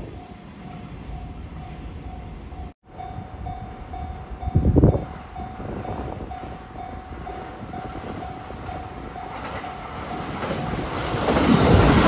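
Japanese level-crossing warning bell ringing in a steady run of repeated dings. From about ten seconds in, an Ainokaze Toyama Railway 521 series electric train grows louder as it arrives and runs past close by, with a brief thump a little before the halfway point.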